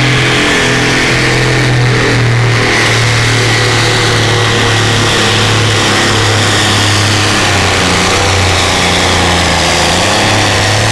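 Case 1570 pulling tractor's diesel engine running hard under heavy load as it drags a weight-transfer sled. A loud, steady drone whose pitch sags a little a couple of times.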